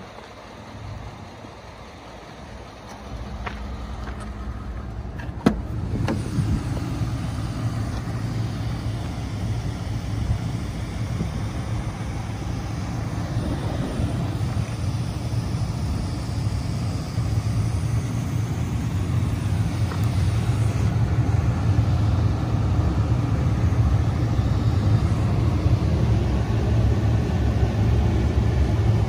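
2014 Ford F-150 pickup's engine idling steadily, growing louder about three seconds in. A single sharp click comes about five seconds in.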